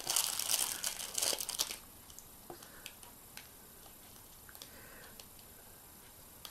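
Thin plastic wrapper crinkling and tearing as a small toy is worked out of it, stopping about two seconds in. A few faint clicks follow.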